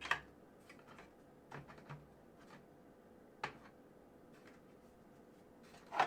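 Faint handling noise: a few scattered light clicks and taps as the screwdriver and its case are handled. The clearest tap comes about three and a half seconds in.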